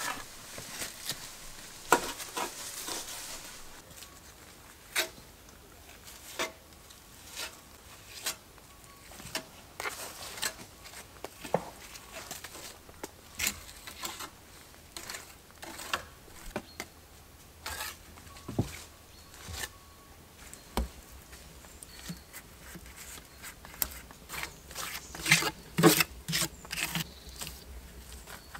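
Scattered knocks, clicks and rustles of hand work on a river-stone stove chimney, about one sharp click a second, with a denser run of louder clicks near the end.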